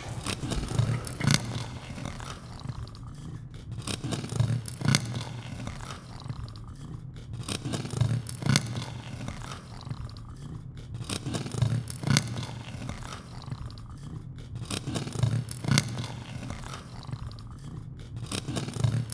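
Looped soundtrack texture: a low pulse with clusters of sharp clicks and noise that repeats about every three and a half seconds, with a short dip between repeats.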